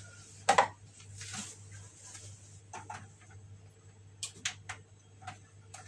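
Scattered small clicks and ticks, about eight over the few seconds, with a pair close together near the start of the last third, over a low steady electrical hum.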